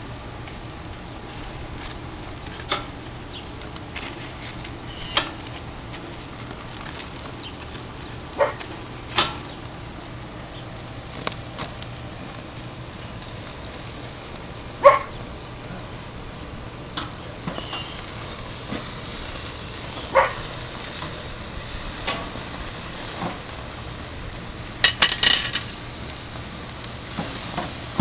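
Steaks sizzling on a grill with a steady hiss that grows stronger in the second half. Metal tongs click against the grill grates every few seconds, with a quick clatter near the end as a steak is lifted.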